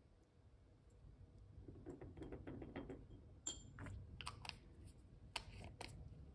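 Small metal spoon clicking against a small glass bottle and a ceramic dish as lacquer is scooped out: a few faint light clicks, a sharper click about three and a half seconds in, then several more light taps.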